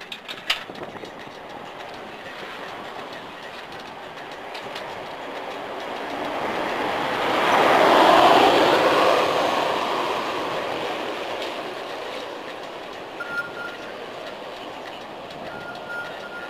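A passing vehicle, its noise swelling to a peak about eight seconds in and then fading away. A sharp click comes about half a second in, and faint short beeps come near the end.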